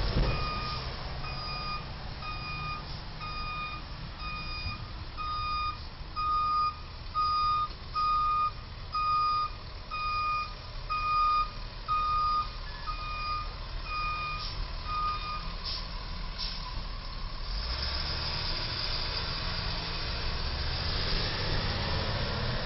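A box truck's reversing alarm beeping steadily about once a second while the truck backs up, over its diesel engine running. The beeping stops about two-thirds of the way through, and the engine carries on alone, a little louder near the end.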